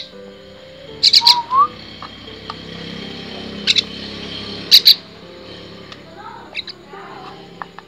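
Fledgling common myna giving several short, high-pitched begging calls, gaping for food during hand-feeding, in bursts about a second in, near the middle and again shortly after. Soft background music runs underneath.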